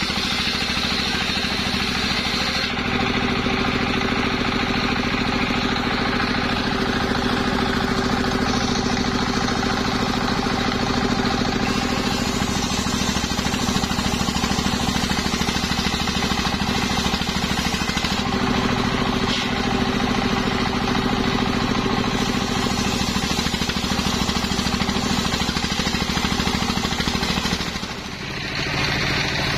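Stationary single-cylinder diesel engine running steadily, driving a large circular saw blade as it rips lengthwise through a waru log. The level dips briefly near the end.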